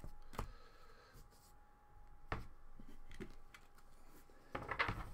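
Trading cards being handled by hand: a few light clicks and slides of card stock against card, then a louder rustle near the end.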